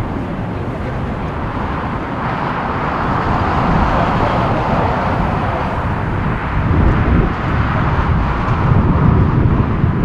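Jet engine roar of a Boeing 787-8 airliner climbing away at takeoff thrust, swelling about four seconds in and then slowly easing as it recedes. Gusty wind rumbles on the microphone underneath.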